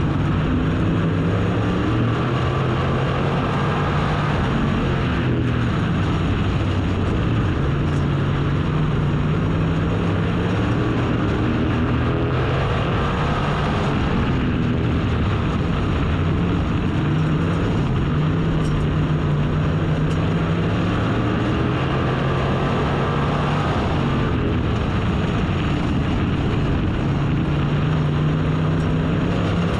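Dirt-track race car engine running hard, its pitch climbing and falling in a repeating cycle every several seconds as the car laps the oval.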